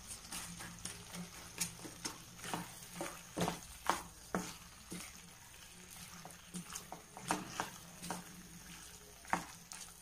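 Chicken pieces in thick masala being stirred in a nonstick frying pan: a soft sizzle under many irregular, sharp clicks and scrapes of a spatula against the pan as the added salt is mixed in.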